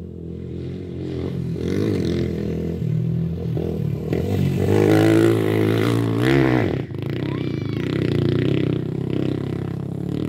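Motocross dirt bike engine revving hard as it rides the track, its pitch climbing to the loudest point about five to six seconds in. Just before seven seconds the throttle closes and the pitch drops sharply, then the engine runs on at a steadier, lower note.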